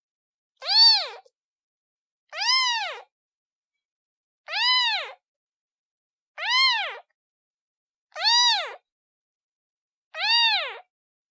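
A kitten meowing six times, about every two seconds: each meow is short and high-pitched, rising then falling.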